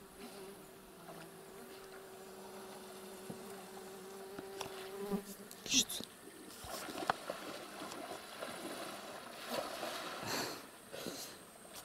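A flying insect buzzing steadily close by for about five seconds, then stopping. After that come irregular rustling noises and a few sharp clicks.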